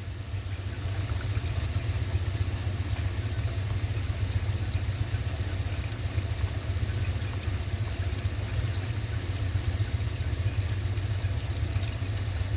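Engine oil pouring in a steady stream from the sump drain hole into an oil drain pan, over a steady low roar from coolers running full blast.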